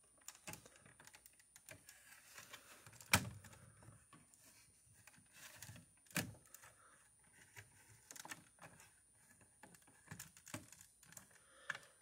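Lego plastic pieces clicking and rattling as hands pry the roof plates and clear panels of a brick model apart: scattered small clicks, with a sharper snap about three seconds in and another about six seconds in.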